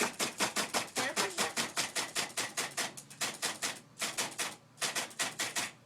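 Electric typewriter keys striking in quick succession, about six keystrokes a second, with two brief pauses, stopping just before the end.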